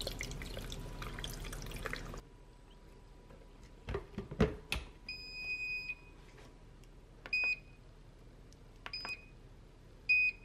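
Water pouring into the stainless steel jug of a Moulinex My Daily Soup maker for about two seconds, then a few knocks as the lid unit is fitted. The soup maker then beeps: one long beep, followed by short beeps as its buttons are pressed to set the 23-minute soup program.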